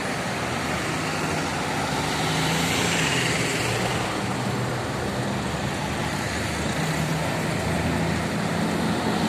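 Busy road traffic: a steady hum of engines and tyres from passing buses and cars, swelling a little around three seconds in as a bus goes by close.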